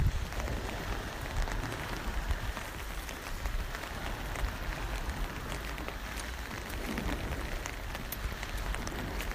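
Steady rain pattering on an umbrella held overhead, many small drops ticking over an even hiss, with a low rumble underneath.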